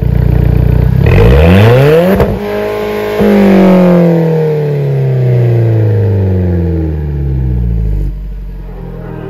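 Alfa Romeo 4C's turbocharged four-cylinder engine through its Magnaflow cat-back exhaust. It pulls hard with the revs climbing quickly about a second in, breaks off briefly, then the revs come back high and fall away slowly over about five seconds.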